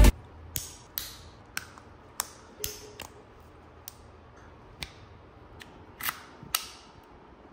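A series of about a dozen sharp clicks and knocks at uneven intervals, the two loudest near the end, from tools and parts being handled.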